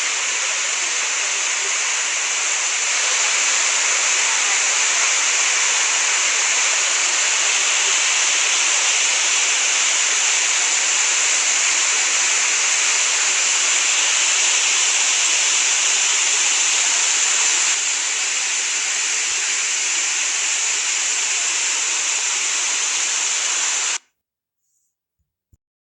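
Steady rushing of a waterfall's falling water, which cuts off suddenly near the end.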